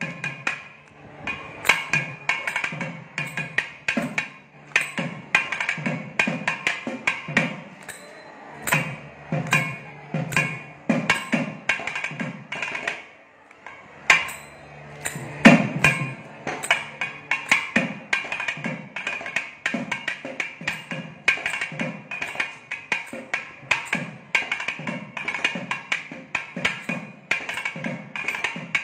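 Thavil solo (thani avarthanam): fast rhythmic patterns of sharp stick cracks on the left head and deeper finger-capped strokes on the right head. The playing eases briefly about 13 seconds in, then resumes with a single loud accent about 15 seconds in.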